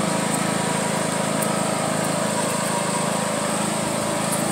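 Riding lawn mower engine running steadily as the mower drives along.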